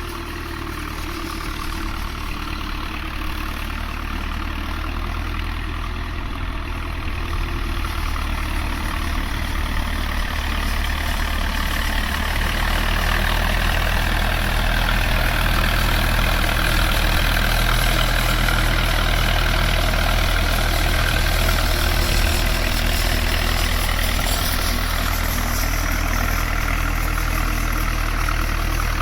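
Standard Fordson tractor's four-cylinder side-valve engine running steadily, growing louder over the first half of the stretch and then holding.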